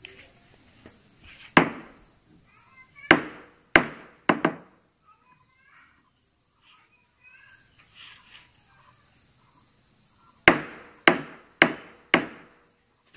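Hand tool striking wood in carpentry work: sharp knocks, five irregular blows in the first few seconds, then four more evenly spaced about half a second apart near the end, over a steady high-pitched drone.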